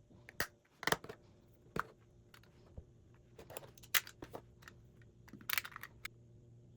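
Small household items being handled: irregular clicks and light knocks, with a short rustle about five and a half seconds in.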